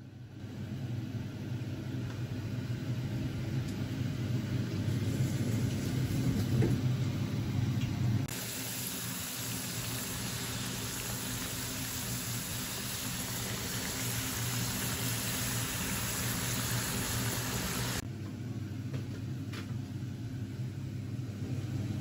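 A kitchen fan running with a low steady hum. About eight seconds in it switches abruptly to a loud steady sizzle of skin-on hand-cut chips deep-frying in oil, and the hum returns about eighteen seconds in.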